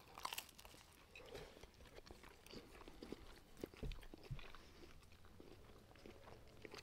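Faint chewing and small mouth noises of people eating, with scattered soft clicks and two soft knocks about four seconds in.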